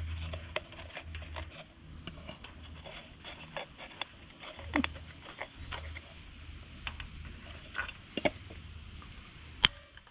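Small clicks and scrapes of hands working on a small engine's carburetor as the float bowl is taken off and fuel drained into a glass jar, with one sharp click near the end. A low hum runs underneath.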